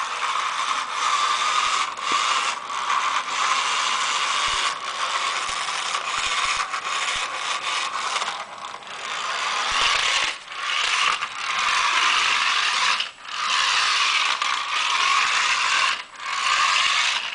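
Toy car's small motor and plastic gears whirring steadily, dropping out briefly three times in the second half.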